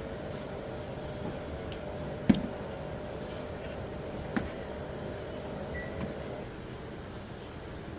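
A steady machine hum that stops about six and a half seconds in, with a handful of sharp knocks over it, the loudest a little after two seconds in.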